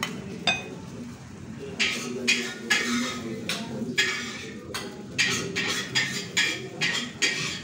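A metal ladle clinks twice against a ceramic plate as fried noodles are served. Then comes a run of short metal scraping and clattering strokes, two or three a second, like a spatula working in a wok or pan.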